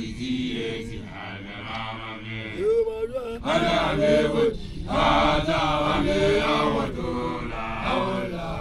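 Basotho initiates (makoloane) chanting a traditional song, male voices holding and bending drawn-out notes, with short breaks between phrases.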